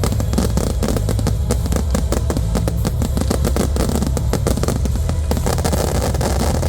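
Fireworks finale: rapid, overlapping volleys of shots and bangs over a steady low rumble. About five seconds in the separate reports blur into a dense, even crackle-like noise.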